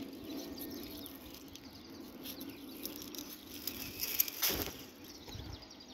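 Passion fruit vine leaves and stems rustling and crackling as a fruit is pulled off by hand, with a louder rustle about four seconds in.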